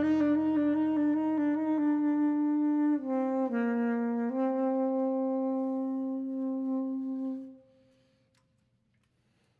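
Closing bars of a song: a wind instrument holds a long note, dips lower for about a second, then holds a final note that fades out about seven and a half seconds in.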